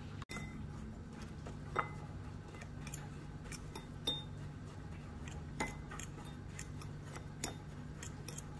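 A utensil clinking and tapping lightly and irregularly against a container as powdered coconut milk is mixed into warm water, over a steady low hum.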